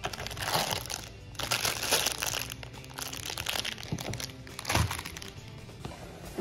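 Clear plastic bag crinkling in bursts as a packaged cable lock is handled and lifted out of the box, with a short knock about three-quarters of the way through. Background music plays steadily underneath.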